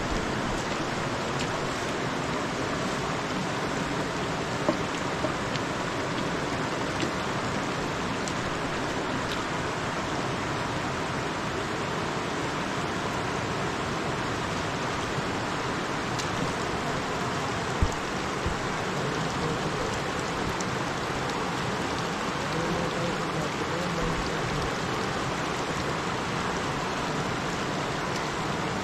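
Steady rushing of a big, fast river, with a few brief knocks over it, the loudest about eighteen seconds in.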